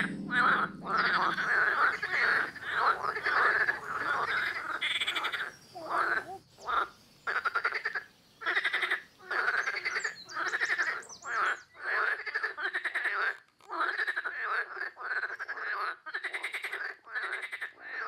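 Green water frogs croaking in a chorus: short, pulsed calls repeated one after another with brief gaps.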